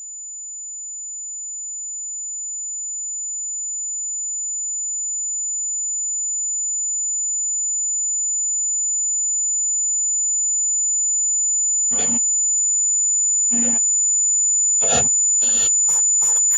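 A single high-pitched electronic tone, swelling slowly and steadily louder. From about twelve seconds in, short sharp hits join it, coming faster and faster near the end.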